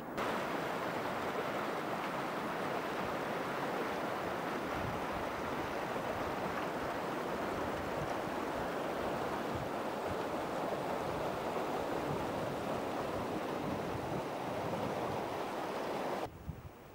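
Steady rushing outdoor ambience with no distinct events, starting abruptly and cutting off suddenly near the end.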